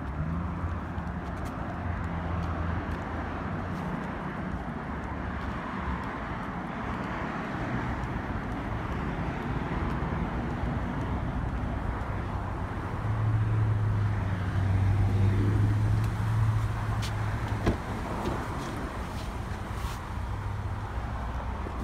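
Road traffic: a steady hum of car engines and tyre noise, with a vehicle running louder for a few seconds about two-thirds of the way through.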